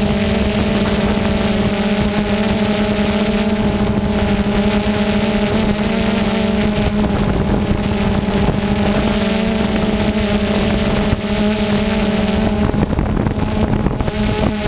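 Multirotor drone's propellers humming steadily at a fixed pitch over a rush of air noise on the onboard microphone; the hum changes near the end.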